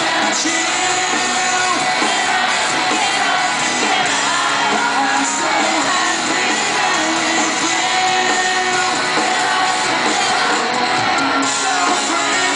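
Live rock band playing loud and steady, with electric guitars, drums and a male lead vocal, heard from within the audience. The crowd around is singing along and shouting.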